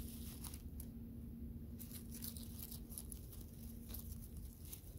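Dry leaf litter rustling and crackling in short, irregular bursts as a hand gathers berries off the forest floor.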